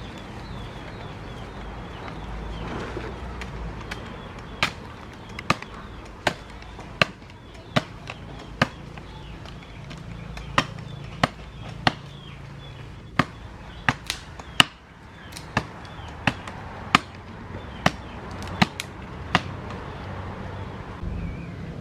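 A tool struck over and over in sharp chopping blows, about twenty strikes at roughly one or two a second, starting a few seconds in and stopping a couple of seconds before the end.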